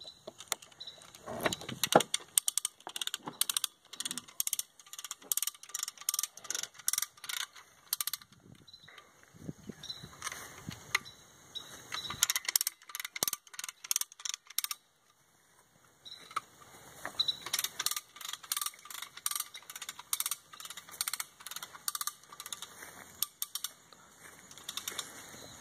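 A key working the rear hatch lock of a 1994 Toyota Supra, then keys jangling and many small metallic clicks and rattles. A short quiet spell comes about fifteen seconds in.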